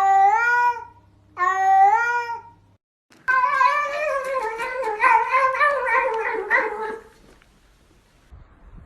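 Kitten meowing: two long meows, then, after a short break, about four seconds of wavering, continuous mewing with clicks through it that stops sharply.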